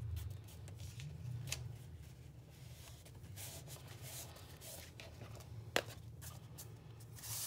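Soft rustling and rubbing as hands press and smooth a glued fabric strip onto a hardback book cover, over a low steady hum, with one sharp tap about three quarters of the way through.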